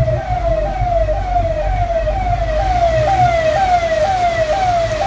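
A siren sounding a fast repeating cycle, about two a second, each cycle jumping up in pitch and then sliding down, over a low rumble.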